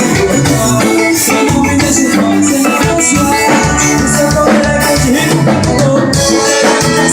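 Live band playing an instrumental passage, with a drum kit and bass guitar keeping a steady beat.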